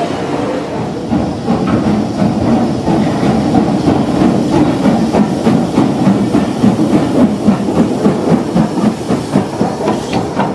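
BR Fairburn 2-6-4 tank steam locomotive 42073 running past close by at low speed, steam hissing, with a quick, uneven beating that grows louder about a second in.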